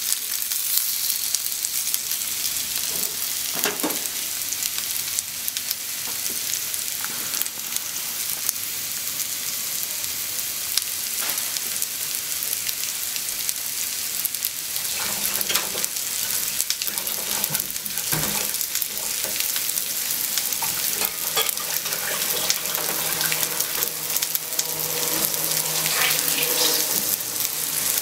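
Flour-dusted pork slices and sliced onion sizzling in an oiled frying pan: a steady hiss with scattered crackles and pops.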